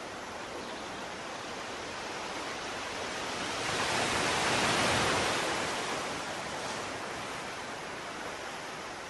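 Sea surf: a steady wash of water noise, with one wave swelling to its loudest about four to five seconds in and then fading back.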